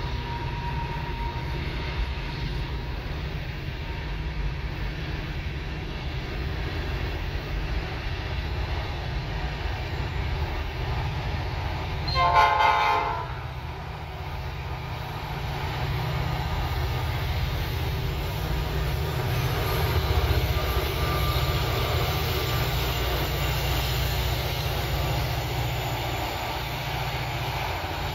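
Loaded coal hopper cars rolling past with a steady low rumble. About twelve seconds in a locomotive horn gives one short blast, and then the diesel engines of two rear helper locomotives, pushing the train upgrade, grow louder as they pass.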